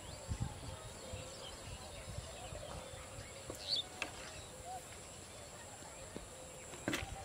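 Outdoor rural background: faint scattered bird chirps over a steady high-pitched whine, with soft low thumps and a sharp click just before the end.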